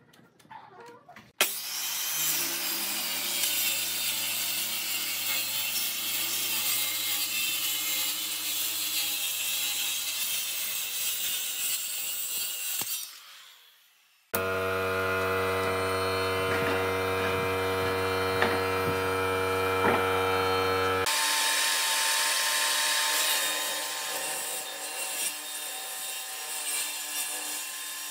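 Power tools cutting wood in three abruptly joined takes: a handheld power tool run along a board's edge, then a machine with a steady whine of many tones, then a table saw cutting through the edge of a wooden tabletop.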